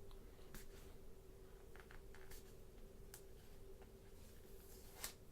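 Faint, scattered clicks and light crackles of a plastic protective film being peeled off a new Samsung Galaxy S8 phone, over a low steady hum.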